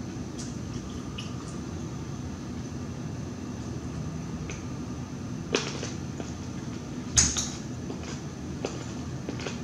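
Close-up eating sounds: chewing and mouth sounds with a few sharp clicks, the two loudest a little after halfway through.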